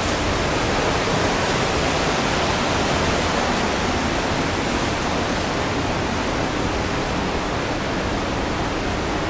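Steady roar of rushing water, heard from inside a rock tunnel.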